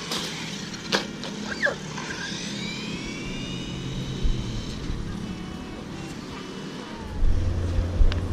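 Small electric motors of 1/12-scale RC drift trucks whining on pavement, the pitch rising as they speed up and then holding steady, with a few sharp clicks. A louder low rumble comes in near the end.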